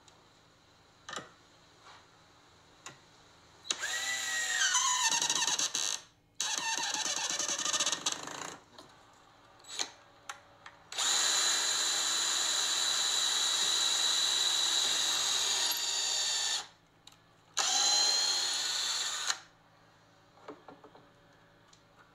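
Cordless drill running in four separate bursts while drilling into plywood, the longest about five and a half seconds; in the earlier bursts the whine dips in pitch and recovers. Light clicks and taps in the gaps between runs.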